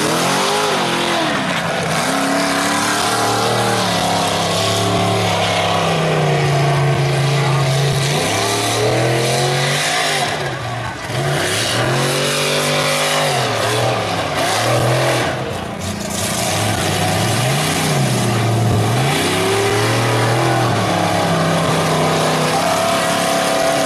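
A Chevy mega truck's engine revving hard under load in mud, its pitch swinging up and down again and again.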